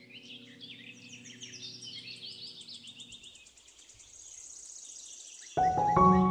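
Birds chirping, with a fast high trill from about four seconds in, over a soft held music drone that stops about three seconds in. Near the end, loud music with sustained piano-like notes starts suddenly.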